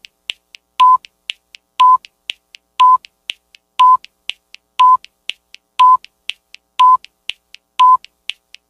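Countdown timer sound effect: a short, high beep once a second, nine in all, with a fainter, higher tick halfway between each beep.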